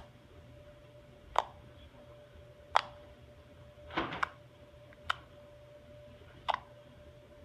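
Fingers poking into glittery slime, making about six short pops roughly a second apart, two of them close together in the middle.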